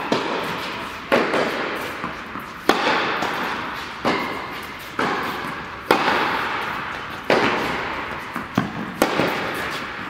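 Tennis ball hit back and forth in a rally on an indoor hard court: sharp racket pops about every second and a half, with the ball's bounces between them, each one echoing through the hall.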